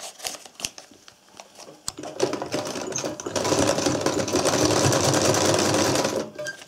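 Old Podolsk domestic sewing machine stitching steadily through leather and bias binding laid over a paper strip. A few light clicks of handling come first; the machine starts about two seconds in and stops shortly before the end.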